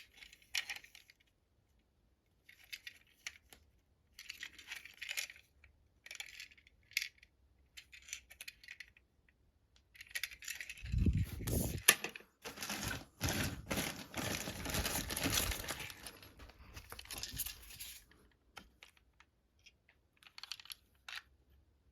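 Plastic packaging rustling and small plastic toy-train parts clicking as a boxed set is unpacked, with a longer, louder crinkling and tearing of wrapping from about ten to eighteen seconds in.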